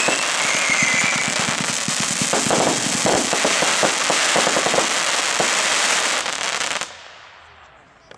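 Argento-Hermes 240-shot, 20 mm fireworks compact firing rapid shots over a dense crackling hiss, with a short falling whistle about a second in. The volley stops abruptly about seven seconds in as the compact burns out, leaving a fading echo.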